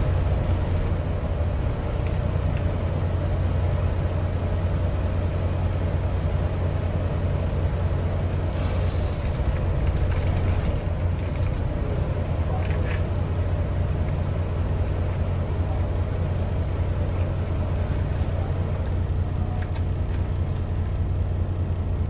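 Steady low hum inside an Alexander Dennis Enviro400 MMC hybrid double-decker bus standing still, holding one even pitch with no revving.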